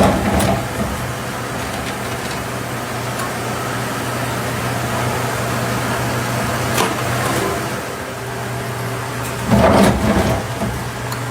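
Steady hum of factory machinery running, with two short louder bursts, one at the start and one about ten seconds in.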